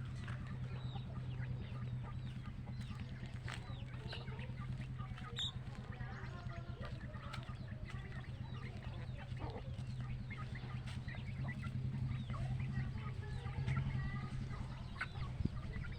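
Chickens clucking, with short chirping calls scattered throughout, over a steady low hum.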